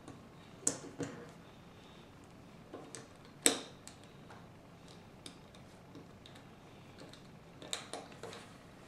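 Plastic Lego bricks being handled and pressed together, giving scattered sharp clicks, the loudest about three and a half seconds in.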